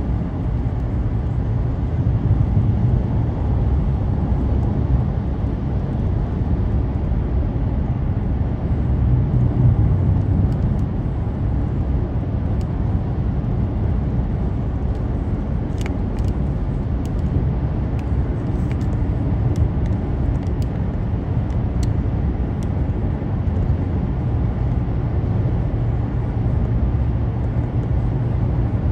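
A car driving along a road: steady engine and tyre noise, heaviest in the low end, with a few faint ticks about two-thirds of the way in.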